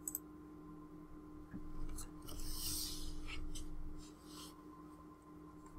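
Faint computer mouse clicks and two soft hissing noises close to the microphone, over a low steady electrical hum.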